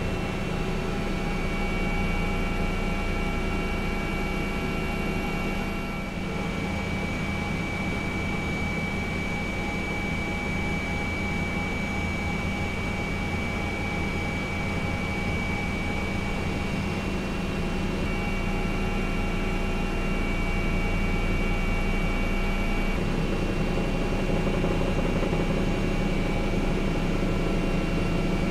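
Steady mechanical hum of an engine or motor, with several steady whining tones above a low rumble. A few of the higher tones drop out and return partway through.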